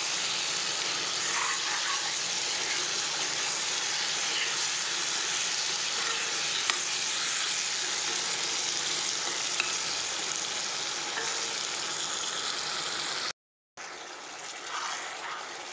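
Meat and potato curry sizzling in hot oil in a black kadai, stirred with a metal ladle, with a couple of light ladle clicks against the pan. After a brief cut near the end, the curry, now with water added, sizzles more quietly.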